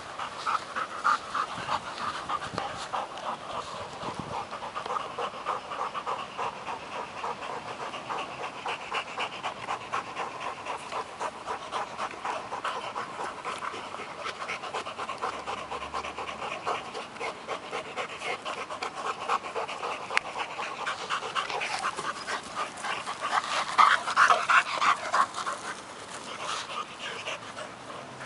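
A Working Mastiff pup and a bull and terrier panting hard and fast from rough play, about three pants a second. The panting grows louder a little past three-quarters of the way through.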